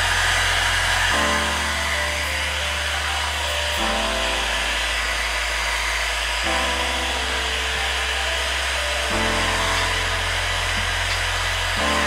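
A handheld hot-air blower running steadily with a constant rushing hiss, blowing across wet epoxy resin to push it into swirls. Background music plays under it, its chords and bass changing every two to three seconds.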